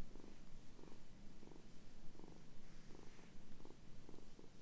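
Kitten purring close up while being petted, a steady purr that pulses about two to three times a second.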